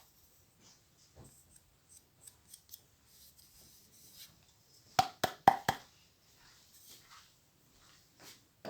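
Small sewing-machine parts handled on a workbench: faint scattered taps and rubbing, then four sharp clicks in quick succession about five seconds in.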